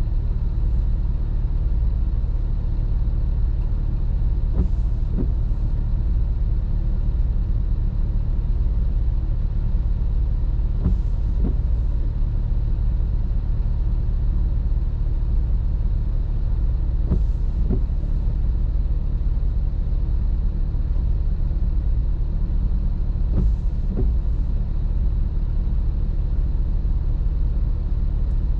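Car engine idling steadily while the car stands in traffic, heard from inside the cabin. Intermittent windscreen wipers make a brief double swish about every six seconds.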